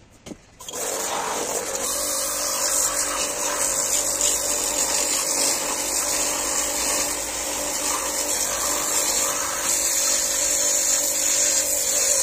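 Pressure washer spraying a carburettor body clean: a steady hiss of the water jet over the hum of its pump, starting about a second in.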